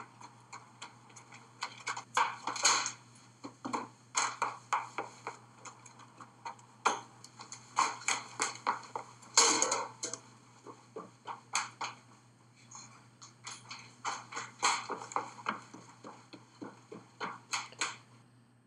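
Location sound of raw chase-scene film footage playing back: irregular knocks, clicks and clatter over a faint steady low hum.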